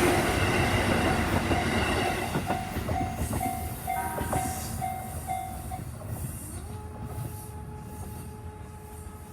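Diesel local train rumbling and clattering past a level crossing, fading as it moves away. The crossing's warning bell rings about twice a second and stops about six seconds in. After that a steady hum glides up and holds.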